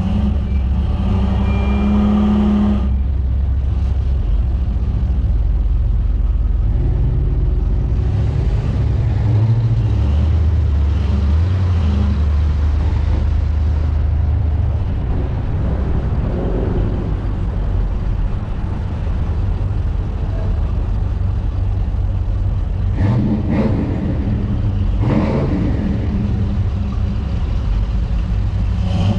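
Classic car engines running as the cruise drives along: a steady low rumble, with the engine note rising and falling a couple of times.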